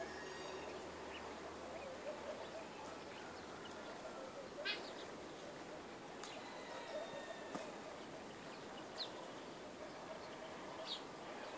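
Scattered short, high bird chirps, a few seconds apart, over a faint steady outdoor background of rural morning ambience.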